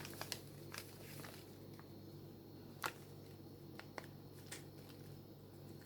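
Faint clicks and light rustling from a spoon and packet as a spoonful of turmeric powder is measured out, over a low steady hum. The sharpest click comes about three seconds in.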